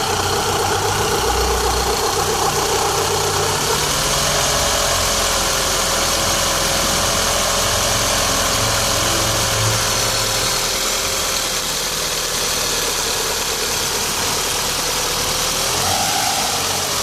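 Volkswagen Golf GTI 1.8 turbo four-cylinder engine idling with a strange noise; about four seconds in the revs rise slightly and hold, then drop back to idle near the end. The noise is said to disappear with a little throttle, and the owner suspects the water pump, timing belt or belt tensioner.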